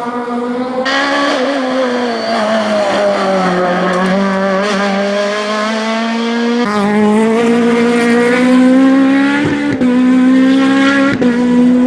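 Rally kit car's four-cylinder engine at high revs under full attack, its pitch sagging and climbing with the throttle, with brief breaks at gear changes near the end.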